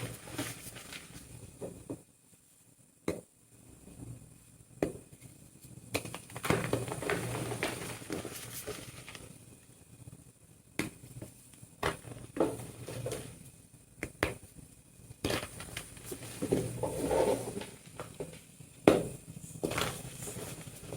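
Pink-dyed gym chalk being crushed: sharp crunchy cracks now and then, between longer stretches of soft crumbling as the chalk breaks down into powder.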